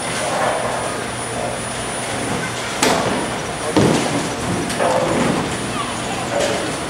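Bowling alley ambience: a steady rumble of rolling balls and pinsetter machinery, with sharp knocks about three and four seconds in and faint background voices.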